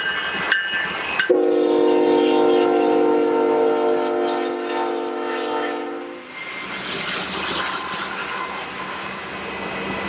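Union Pacific diesel locomotive's multi-note horn blowing as the lead unit passes close by, its pitch dropping sharply about a second in and holding loud until it cuts off about six seconds in. After that, the steady rumble of the following diesel locomotives and rolling wheels.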